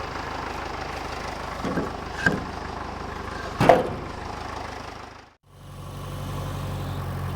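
Case 730 tractor engine running steadily, with three sharp knocks, the loudest about three and a half seconds in. The sound then fades out to a brief gap before a steady hum comes back.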